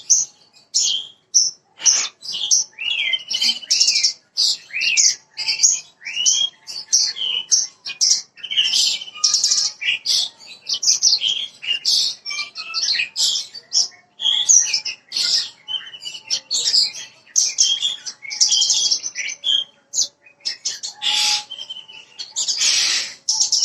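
Horsfield's bushlark (branjangan, parva type) singing a fast, nearly unbroken stream of varied chirps, trills and rising and falling whistles, with a harsher buzzy note near the end.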